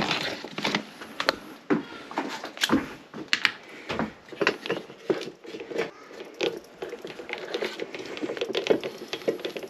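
Irregular clicks, scrapes and crackles from handling a bathroom exhaust fan's housing and parts while the old motor is taken out, with no motor running.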